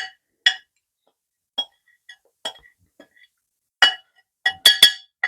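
A utensil clinking against a small glass jelly jar as a dry seasoning blend is filled into it: separate short ringing clinks, a few spread apart at first, then a quicker cluster of several near the end.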